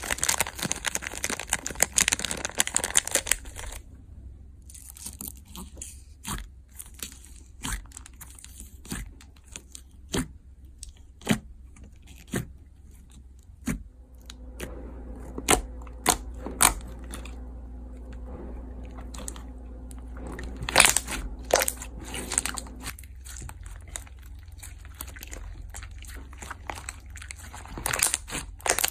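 Pink slime with small clay balls mixed in being poured onto, pressed and squeezed by hand. Dense crunchy crinkling for the first few seconds, then a scatter of separate sharp clicks and pops as the slime is poked and kneaded.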